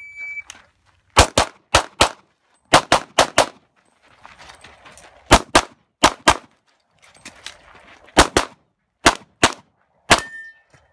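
A shot timer's start beep, then rapid pistol fire: about seventeen shots in quick pairs and short strings through a USPSA stage, with the shooter moving between groups. One shot near the end is followed by a brief metallic ring.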